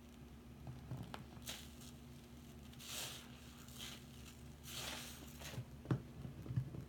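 Soap-soaked scrub sponges squeezed and worked by hand in a sink of foamy water: wet squelching and crackling foam in several swishes, two longer ones near the middle, with a few short sharp wet clicks.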